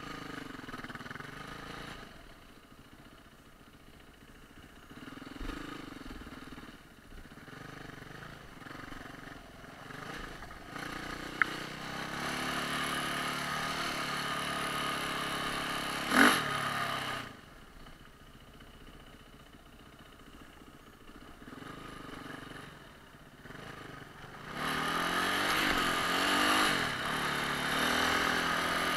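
On-board sound of a GasGas EC 450 enduro dirt bike's engine being ridden, its revs rising and falling with the throttle. There are quieter off-throttle stretches and louder pulls, the longest near the end. A sharp knock comes about sixteen seconds in.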